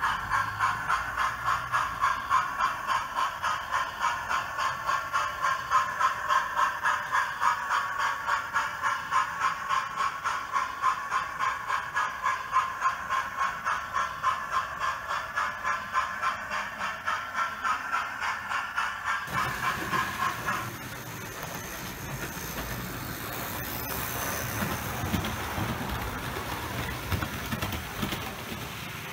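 A sound-fitted model locomotive's small onboard speaker playing a rhythmic exhaust beat, about two to three pulses a second and quickening slightly. About twenty seconds in the beat stops, leaving a rougher running rumble.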